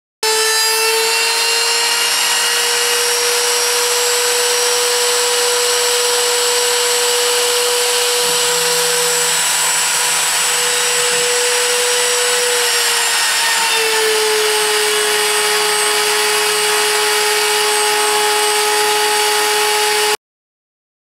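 CNC router spindle running at high speed and cutting wood: a steady high whine over a hiss of cutting. Its pitch drops slightly about two-thirds of the way through and holds there.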